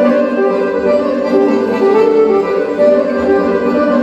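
Instrumental Serbian folk dance music, a melody of short, quick notes on accordion.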